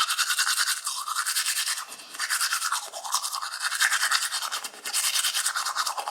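Toothbrush scrubbing teeth in quick back-and-forth strokes, the wet brushing sound shifting as the brush moves around the mouth.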